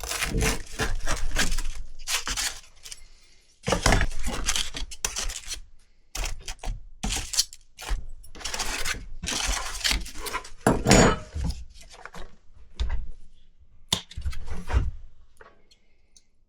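Pots, pans and utensils clattering and scraping in irregular bursts.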